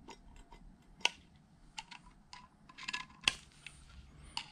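Lever-pump oil can being worked by hand, clicking irregularly, with two sharper metallic clicks about a second in and a little past three seconds, as oil is pumped through the milling machine's saddle oil lines to bleed them.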